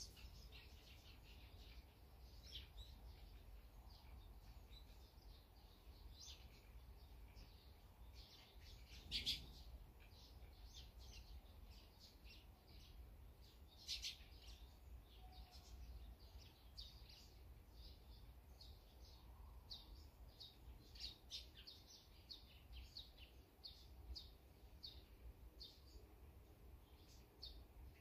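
Small songbirds giving short, faint, repeated chirps throughout, with two louder chirps, one about nine seconds in and one about fourteen seconds in.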